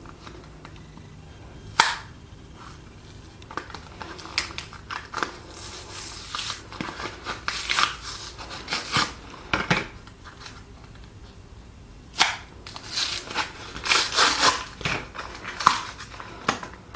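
A DCC decoder chip's packet being handled and torn open: irregular crinkling and rustling with a couple of sharp snaps.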